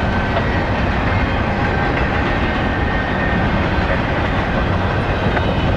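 CN freight train's cars rolling past: a steady, unbroken rumble of steel wheels on the rails.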